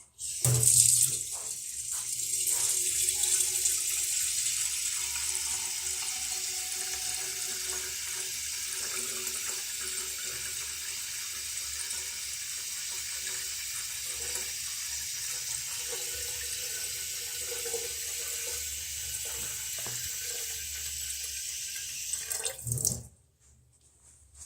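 Water from a tap running steadily into a container, turned on just after the start and shut off abruptly near the end.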